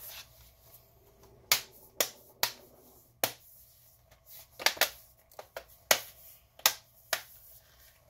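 Dell Inspiron 15 5584's bottom cover snapping into place as it is pressed down around the edges: about ten sharp clicks at uneven intervals as its clips engage.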